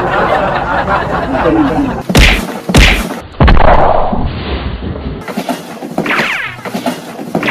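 Three loud thumps in quick succession about two to three seconds in, amid a noisy scuffle.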